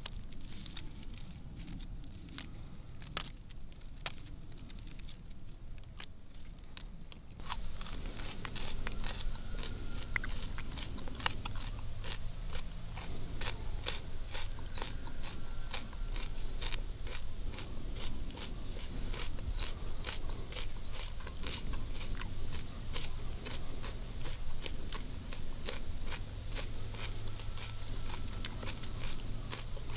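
A fibrous strip of wild kudzu root split apart by hand, giving a few sharp crackles. From about seven seconds in, close crunchy chewing as the fibrous kudzu root strip is bitten and chewed.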